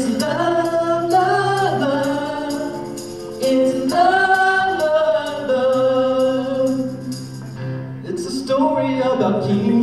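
Several voices singing an upbeat musical-theatre chorus together over a band, with a jingling tambourine. The singers hold long, sustained notes. Recorded from a live stage performance.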